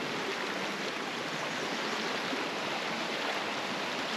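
A small creek running over rocks: a steady, even rush of water.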